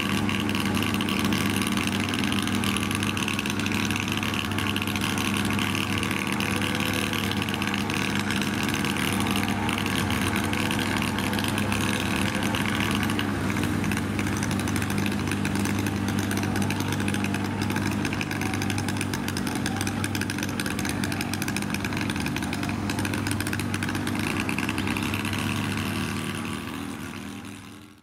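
Diesel engine of a standing passenger train idling steadily with a constant low hum. It fades out at the very end.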